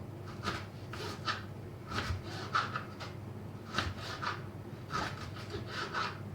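Kitchen knife thinly slicing a peeled fresh ginger root on a cutting board: about ten short, crisp cuts, unevenly spaced.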